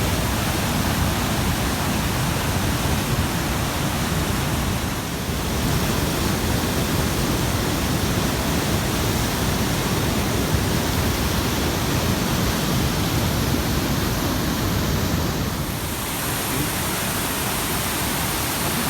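Steady rushing of water pouring over the Tulijá river's cascades, with two slight dips in level, about five seconds in and near sixteen seconds.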